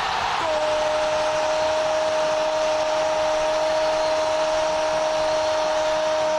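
A football commentator's long, drawn-out "Gol!" cry, held on one steady pitch from about half a second in, over stadium crowd noise.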